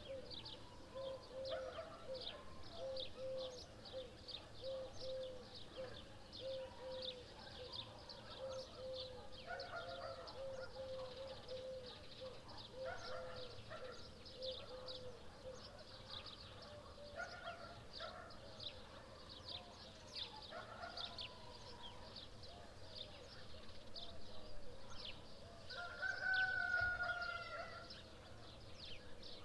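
Morning birdsong: many small birds chirping quickly and high throughout, with a low bird call repeated about twice a second through the first half. A rooster crows once, loudest, near the end.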